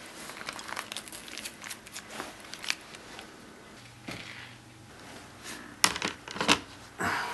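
Rustling and small crinkling handling noises, then two sharp knocks about half a second apart as a calculator is set down on a tabletop, and a short rustle near the end.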